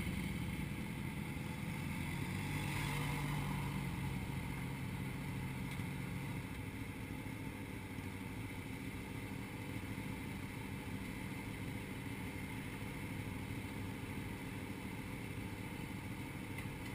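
Sport motorcycle engines idling steadily, with bikes rolling slowly in and stopping close by.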